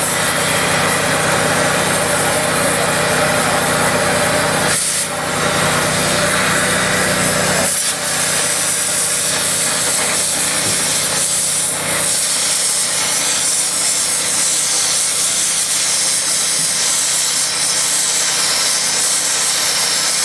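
Oxy-fuel cutting torch burning Chem-O-Lene gas, a loud steady hiss of flame and cutting-oxygen jet as it cuts steel plate, with the torch held well off the metal. Short dips come about five and eight seconds in.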